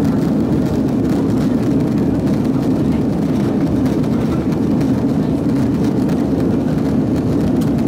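Airbus A330-300 heard from inside the cabin while climbing after takeoff: steady engine and airflow noise, deepest and strongest low in pitch.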